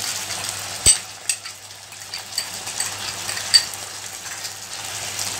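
Chopped tomatoes frying in oil in a pan on a gas stove, a steady soft sizzle. A few sharp clicks stand out, the loudest about a second in and again about three and a half seconds in.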